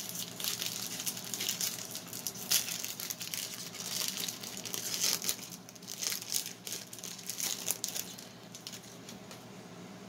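Foil wrapper of a 2021 Topps Pro Debut baseball card pack crinkling and tearing as it is opened by hand and the cards are pulled out. The crinkling stops about eight seconds in.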